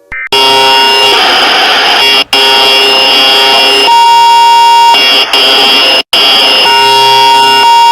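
Loud, harsh electronic alarm-like tones: a brief high beep, then a dense blaring block of steady tones whose pitches shift every second or few, cutting out briefly several times.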